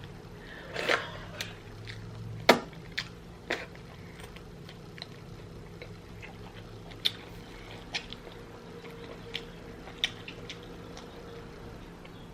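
Wet chewing and lip smacks of someone eating a tender turkey leg dipped in alfredo sauce: irregular sharp mouth clicks, busiest in the first few seconds and sparser later, the loudest about two and a half seconds in.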